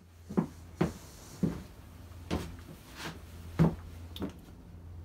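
Objects being handled on a wooden workbench: about seven short, irregular knocks and clunks over a steady low hum.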